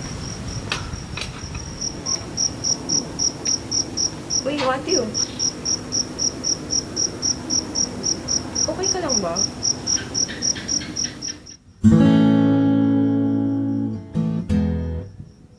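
Crickets chirping in a fast, even pulse of about five chirps a second, with two brief vocal sounds. About twelve seconds in, the chirping cuts off and an acoustic guitar chord rings out and fades.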